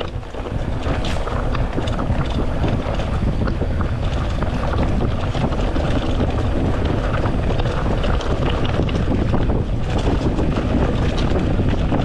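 Mountain bike riding fast down a dirt trail: wind rushing over an action camera's microphone, with the tyres and frame rattling and knocking over the bumps.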